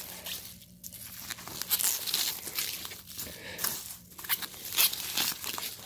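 Bubble wrap crinkling and rustling as it is unwrapped by hand, in a run of irregular crackles with a few louder ones.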